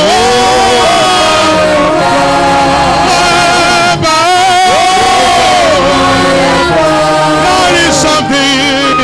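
Live gospel worship song: voices singing long, wavering notes over instrumental accompaniment.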